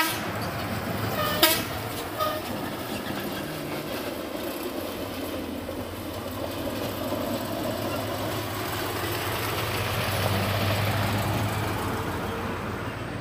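Dump truck engine running steadily over road noise, with a short horn toot about a second and a half in; the engine grows louder near the end.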